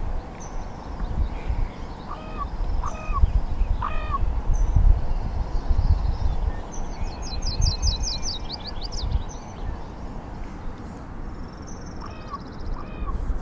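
Wild birds calling: short hooked whistled notes in groups of three, and a quick descending trill about seven seconds in. Under them, an irregular low rumble of wind on the microphone.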